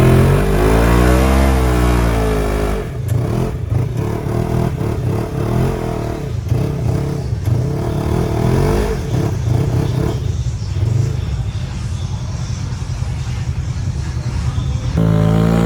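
Can-Am Outlander ATV V-twin engine revving. It climbs and falls in pitch over the first few seconds, then runs at changing throttle with repeated pitch swings, and revs up and back down again near the end.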